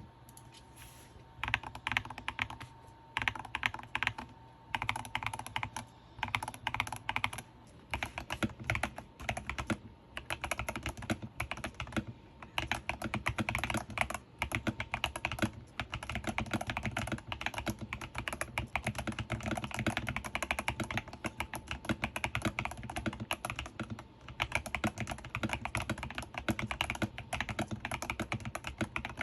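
Fast typing on a TH80 mechanical keyboard with unlubed Budgerigar tactile switches: dense runs of key clacks, broken by brief pauses every few seconds.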